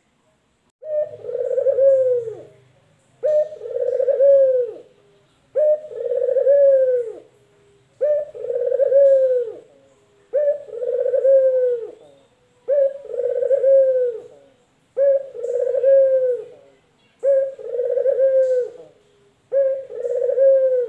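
Male puter (collared-type dove) cooing over and over, nine calls about two and a half seconds apart. Each call is a short clipped note and then a longer rolling coo that drops in pitch at the end.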